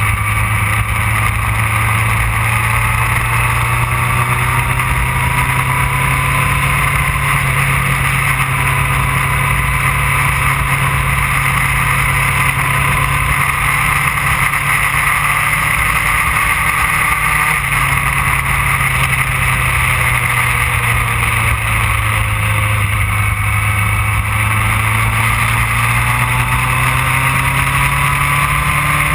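Yamaha R1 inline-four sport-bike engine heard onboard while cruising, its note rising and falling gently with the throttle, with one abrupt shift in engine note about two-thirds of the way through, over a steady rush of road noise.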